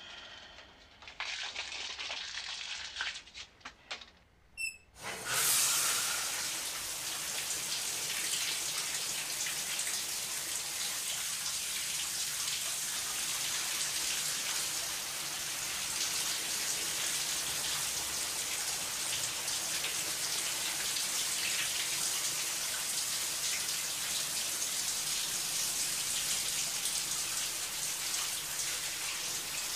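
Shower spray coming on suddenly about five seconds in, after a few brief small noises, then running in a steady hiss onto a person in a tiled stall.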